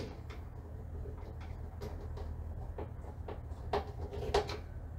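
Plastic clicks and knocks from a small weatherproof breaker enclosure being handled, its hinged cover and parts fitted by hand, a few scattered strokes with the two loudest near the end. A steady low hum runs underneath.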